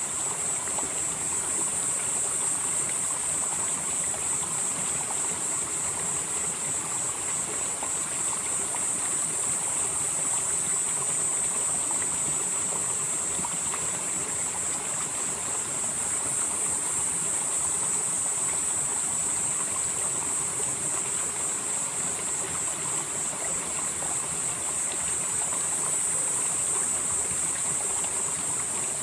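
Valley stream flowing steadily, an even rushing of water. A high hiss runs through it and swells slightly every several seconds.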